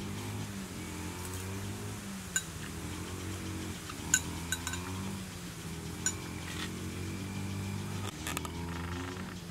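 A metal spoon clinking against a ceramic bowl a handful of times, the sharpest clink about four seconds in, over a steady low hum.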